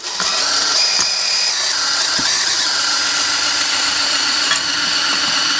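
Cordless drill spinning a stone cylinder hone inside a rusted cylinder bore of a small-block Chevy, a steady high whine with the stones grinding the rust off the wall. It drops out for a moment at the start, then runs on steadily.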